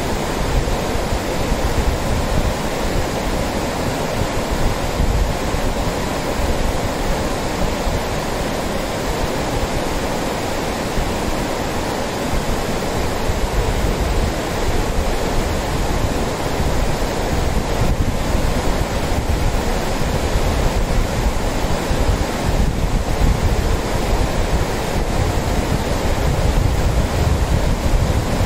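Lidder River rapids rushing steadily over a wide, rocky, shallow bed, with wind rumbling on the microphone now and then.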